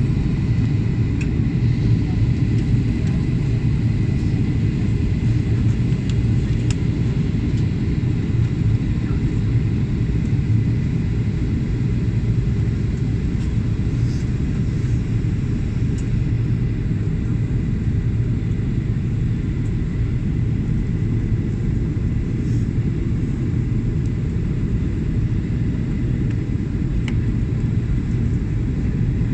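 Steady low rumble of a jet airliner's cabin, engine and airflow noise heard at a window seat over the wing, with the plane descending toward its arrival.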